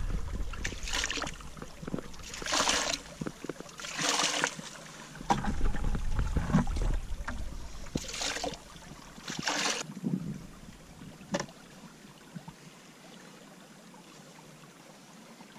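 Water splashing down a metal sluice box into a plastic bucket as the sluice is rinsed out in a cleanup, washing the concentrates off the riffles and matting. Several short splashing pours in the first ten seconds, then quieter trickling.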